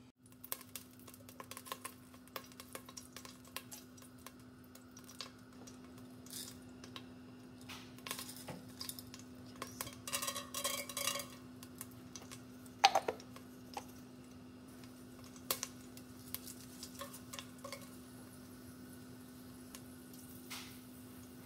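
Kitchen handling sounds: scattered clinks and knocks of cookware, utensils and a glass spice jar, over a steady low hum. A short run of ringing clinks comes about ten seconds in, and a single sharp knock a little after is the loudest sound.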